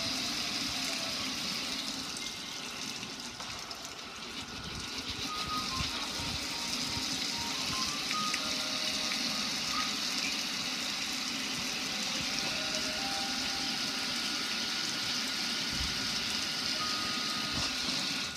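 Water streaming and splashing down over a gas grill and onto the patio in a steady rush. A simple tune of single high notes plays faintly over it.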